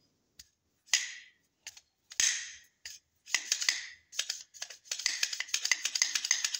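Metal slide of a .30 bore pistol being fitted onto its frame and worked by hand: a few separate metallic clicks and scrapes at first, then a fast run of rattling clicks from about five seconds in. The slide is being checked for a bend that could be making the rusted pistol jam.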